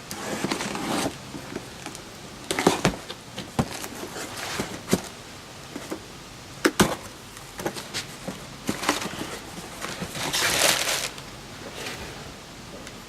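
Parts boxes and packaging being handled: scattered knocks and clicks with several bursts of rustling, the longest about ten seconds in.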